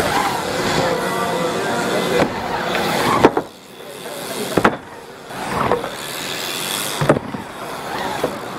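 BMX bike tyres rolling on a wooden bowl ramp, the rolling noise swelling and fading as the rider carves up and down the walls. Several sharp knocks from the wheels landing and hitting the ramp.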